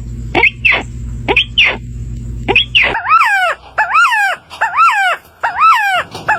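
An animal's repeated calls: short falling yelps over a low hum, then, after a sudden change about three seconds in, a steady run of pitched cries that each rise and fall.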